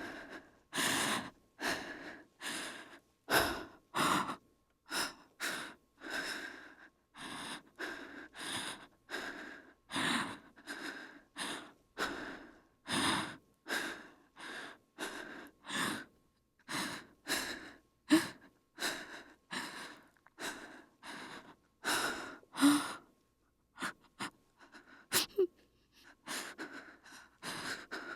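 Woman breathing in fright: quick, heavy, gasping breaths in and out, about two a second. The breathing stops briefly about three-quarters of the way through, with a few faint clicks, then starts again.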